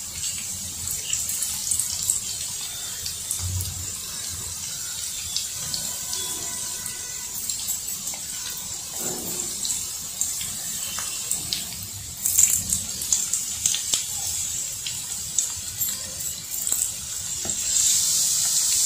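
Batter-coated chicken fingers deep-frying in hot oil in a kadhai: a steady hissing sizzle with scattered small pops. The sizzle grows louder about two-thirds of the way through and again near the end.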